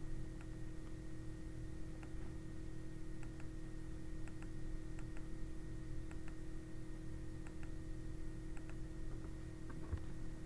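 Computer mouse buttons clicking, single clicks and quick pairs spaced irregularly, as text is selected and pasted with the mouse, with a few keyboard keystrokes near the end. A steady low electrical hum runs underneath.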